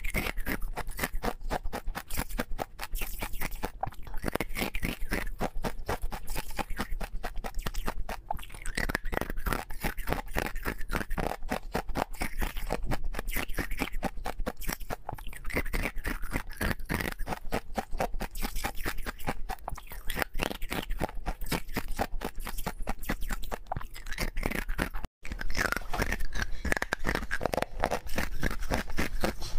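Close-miked crunching and chewing of hard chunks of Tartary buckwheat ice: a dense, continuous run of crisp cracks and crunches. The sound drops out for an instant about 25 seconds in.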